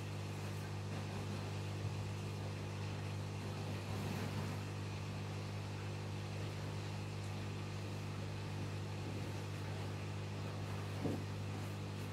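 Aquarium pump humming steadily: a constant low hum made of a few steady tones.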